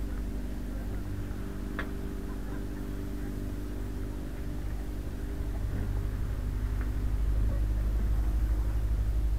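Small river ferry's engine running steadily, growing louder about six seconds in as the ferry pulls away from the landing. A single sharp click about two seconds in.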